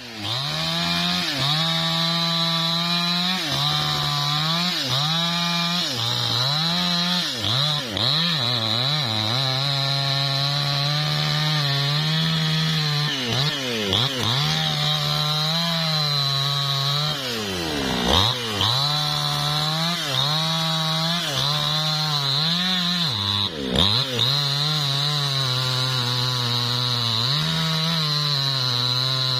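New West 628 two-stroke petrol chainsaw cutting into the trunk of a lamtoro (leucaena) tree, the engine running at high speed. Its pitch sags and recovers again and again as the chain bites into the wood, with two deeper dips later on, over a steady high whine.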